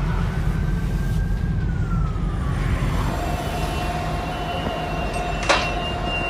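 Emergency vehicle siren in a slow wail, gliding down in pitch over the first three seconds and then holding a lower steady tone, over heavy low rumbling noise. A sharp knock comes about five and a half seconds in.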